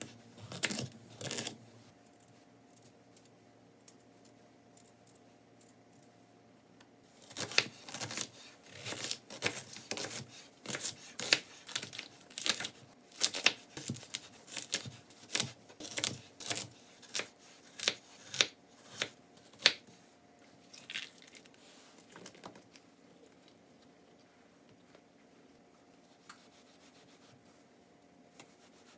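Kitchen knife cutting a large green onion into lengths on a wooden cutting board. It makes a run of crisp cuts about two a second, starting about seven seconds in and stopping about twenty seconds in, with a few single cuts before and after.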